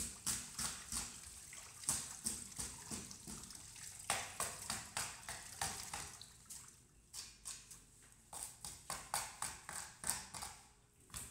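Tap water running into a steel sink, with quick repeated scraping strokes of a handheld fish scaler on a fish's scales, several a second. The running water fades after about six seconds while the scraping goes on.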